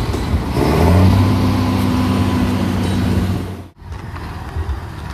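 Mercedes-Benz 1620 truck's diesel engine running steadily, then cut off abruptly about three and a half seconds in.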